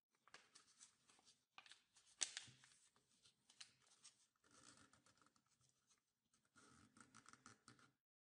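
Faint rustling and crinkling of origami paper as it is folded and creased by hand, with one sharper crackle about two seconds in.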